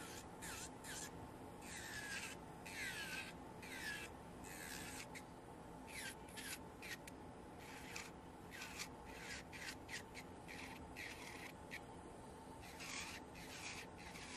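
Electric nail drill (e-file) with a white cylindrical bit buffing a natural nail near the cuticle: a steady faint motor whir under repeated short grinding strokes, about one and a half a second, each with a brief falling whine.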